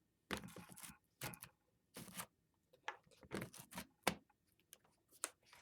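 Laptop battery being fitted into the underside of an HP EliteBook 8560p: plastic handling and scraping noises with a few short clicks, the sharpest click about four seconds in.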